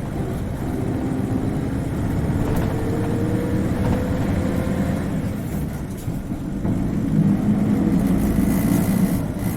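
Isuzu Cubic KC-LV380N city bus's diesel engine running under load, heard from inside the cabin. A whine rises in pitch over the first five seconds, the sound dips briefly about six seconds in, then the engine pulls harder again.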